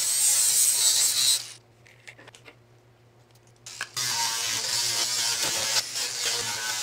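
Teal Makita cordless angle grinder with an abrasive sanding disc grinding a rusty steel go-kart frame tube down to bare metal: a steady high hiss. It cuts off abruptly about a second and a half in, leaving near quiet with a few small clicks, and starts again about four seconds in.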